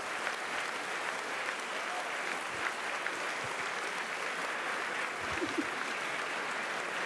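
Audience applauding steadily in a hall, the even clapping of a large crowd, with a short call from someone about five seconds in.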